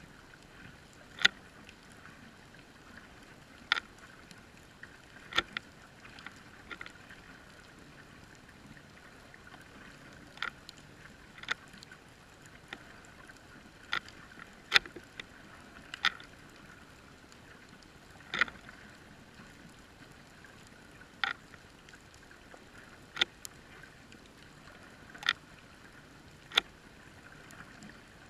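Underwater sound heard through a GoPro housing on the sea floor: a steady muffled hiss broken by sharp single clicks, about one every one to three seconds at irregular intervals.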